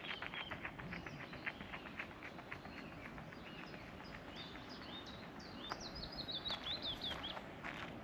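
Running footsteps on a gravel track, fading over the first few seconds as the runner sprints away. Then a songbird sings a quick run of high chirps.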